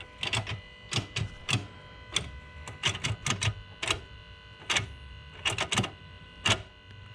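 Ford Focus ST manual gear shifter being worked through the gears: irregular sharp clicks and clunks from the shifter arm and cable joints, which now run on fresh Delrin cable bushings in place of the soft stock ones.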